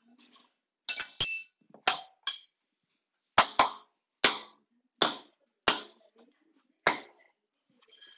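Mallet knocking a new floor plank into place, about ten sharp knocks at uneven intervals, with a brief ringing clink near the first ones. The plank sits slightly short and is being tapped tight.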